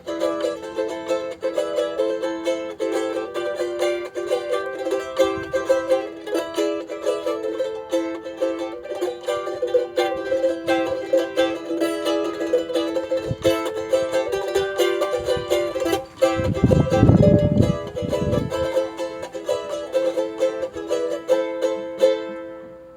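A newly finished mahogany charango strummed in quick, continuous chords, its bright high strings ringing. About two-thirds of the way through, a low rumble of about two seconds sounds under the playing.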